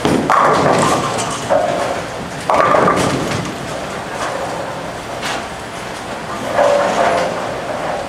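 A bowling ball is released onto the lane and rolls, then strikes the pins with a sudden crash about two and a half seconds in. Throughout there is the rumble and clatter of a busy bowling alley, with another loud stretch of it near the end.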